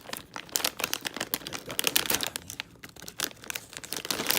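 Crinkling and rustling of a Calbee baseball card packet's plastic wrapper as it is handled and opened, a dense run of sharp crackles.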